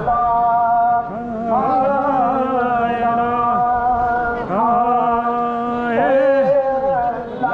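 Devotional chanting by a single voice: long held notes, each sliding up into its new pitch, in four phrases of one to three seconds.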